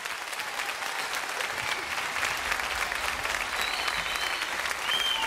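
Audience applauding steadily: the dense crackle of many hands clapping at once after a song ends.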